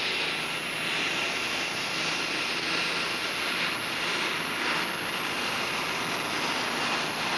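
Diesel super stock pulling tractor running flat out under heavy load as it drags the weight-transfer sled down the track, a dense steady engine noise with a steady high whine on top.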